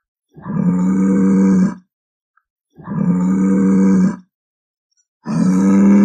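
Water buffalo mooing: three long, low calls of steady pitch, about a second apart.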